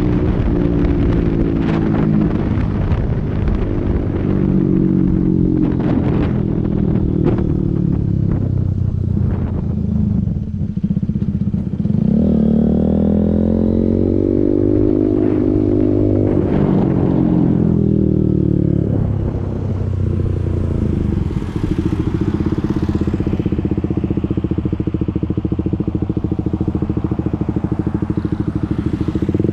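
KTM Duke single-cylinder engine through an open SC Project exhaust, held at a steady rev with many sharp pops in the first ten seconds. About twelve seconds in it is revved up and brought back down, then held steady again.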